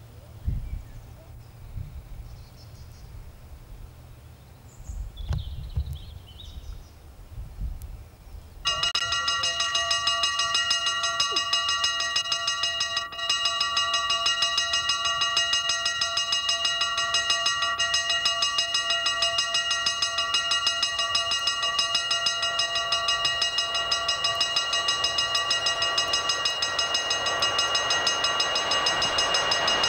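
Level crossing warning bell that starts ringing suddenly about nine seconds in and keeps ringing steadily with a slight pulse: the crossing is signalling an approaching train. The rumble of that train grows louder near the end.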